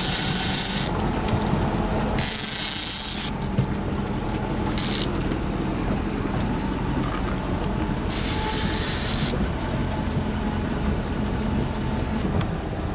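Boat's motor running at a steady trolling speed, with four short bursts of rasping noise over it, each about a second long or less.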